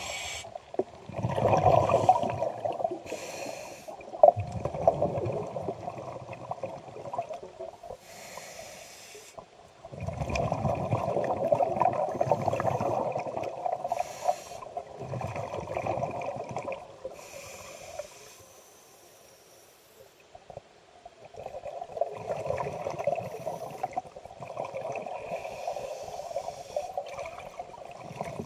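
Scuba diver breathing through a regulator underwater. Short, airy inhalations alternate with longer bubbling exhalations, several breaths in all, with a brief pause near two-thirds of the way through.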